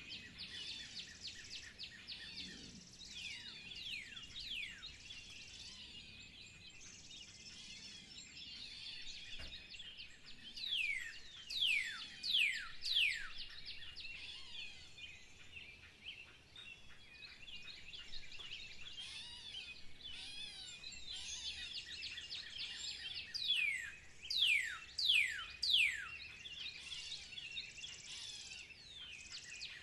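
Several birds singing and chirping together in a steady chorus. Loud, quickly falling whistled notes come in two clusters, about a third of the way in and again after two-thirds.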